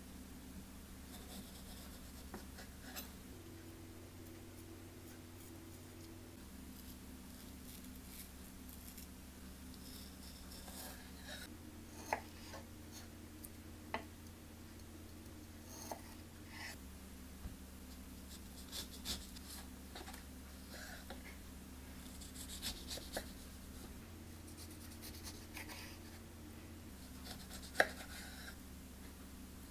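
Kitchen knife slicing kiwi and orange on a bamboo cutting board: soft cutting and scraping, with a few sharp knocks of the blade on the board, the loudest near the end.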